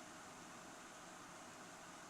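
Faint, steady fan noise: an even hiss that does not change.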